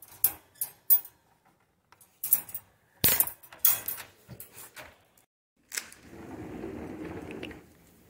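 Wire dog crate door rattling and clanking as its latch is worked open: a run of sharp metallic clicks and clanks, the loudest about three seconds in. Near the end comes a steadier rustling noise lasting about a second and a half.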